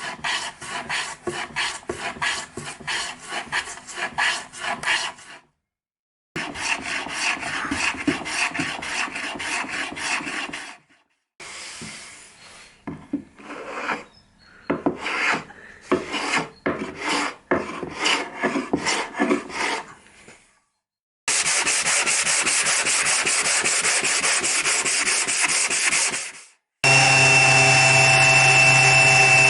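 Rapid strokes rubbing on wood by hand, several a second, in short bursts separated by brief silences. Later comes a steady hiss of about five seconds. Near the end a power tool's motor starts up and runs with a steady whine.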